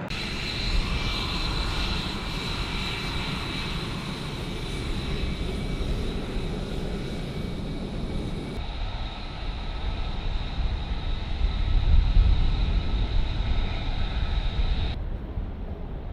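Jet aircraft engine running, a high steady whine over a low rumble. The sound changes abruptly twice, about eight and a half seconds in and again near the end, and is loudest around twelve seconds in.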